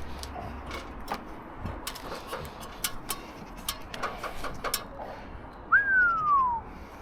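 A single falling whistle-like note, under a second long, near the end. Light scattered clicks and taps sound through the rest.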